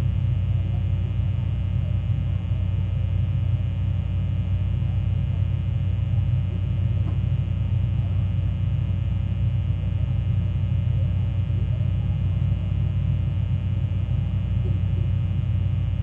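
Steady low droning hum, unbroken and unchanging, with a deep tone and several fainter steady tones above it.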